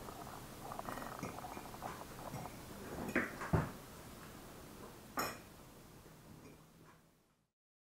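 Forks and cutlery clinking and scraping on china plates as people eat at a table, with a few louder knocks about three and five seconds in. The sound fades out near the end.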